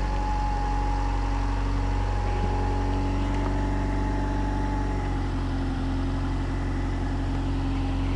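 Four-cylinder engine of a 1990–93 Honda Accord (CB7) coupe idling steadily, shortly after a cold start. A faint high steady tone sounds with it and fades out about five seconds in.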